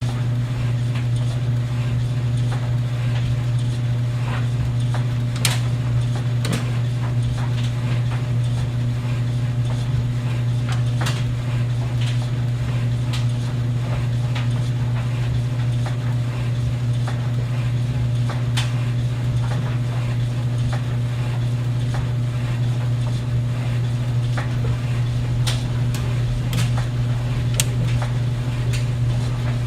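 Clothes dryer running with a steady low hum, with irregular light clicks and clinks scattered over it as the load tumbles in the drum.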